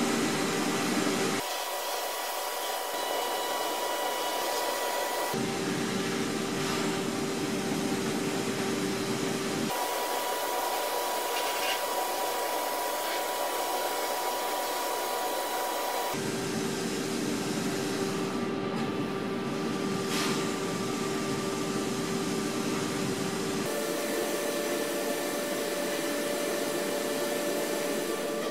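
Abrasive blast cabinet nozzle hissing steadily as compressed air drives media against the scale parts, stripping old green paint to bare metal. The hiss changes abruptly in pitch and character every few seconds.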